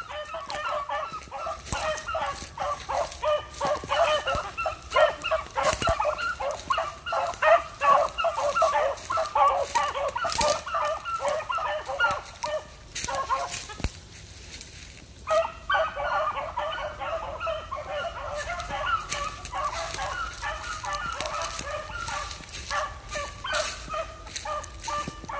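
An animal calling over and over in a fast run of short, pitched calls, breaking off for about two seconds around halfway before starting up again.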